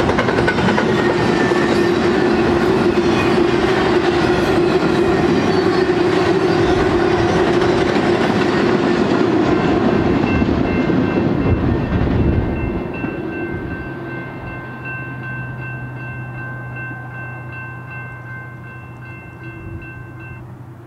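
A double-stack intermodal freight train's cars rolling past on the rails, loud until the last car goes by about twelve seconds in, then fading as the train moves away. From about ten seconds in, a distant locomotive horn holds a steady chord, stopping shortly before the end.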